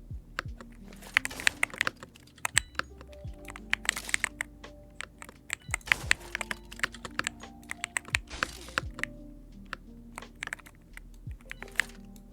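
Typing on a newly unboxed keyboard: quick, irregular key clicks and clacks in short runs, over background music with held notes.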